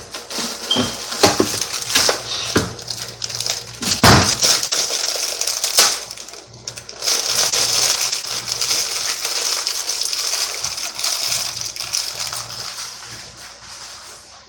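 Plastic bag handled and crinkled, with a quick run of sharp clicks and clatters in the first few seconds, the loudest about four seconds in, then a steady rustle that fades out.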